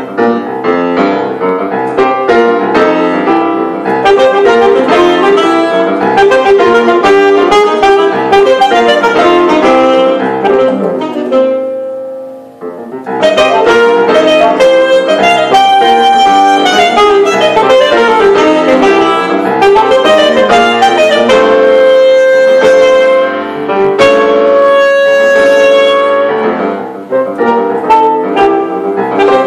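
Alto saxophone and grand piano playing together in a live duo performance. The music thins and fades briefly about twelve seconds in, then picks up again at full strength.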